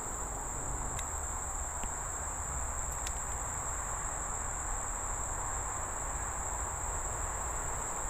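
A chorus of insects singing in a steady, high-pitched drone over a soft even hiss, with a couple of faint ticks.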